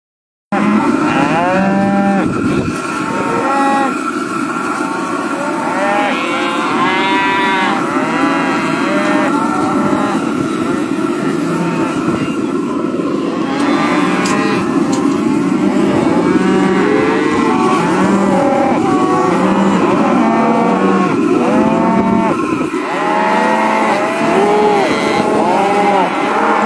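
Calves bawling again and again, many calls overlapping, as they are roped and held down for branding.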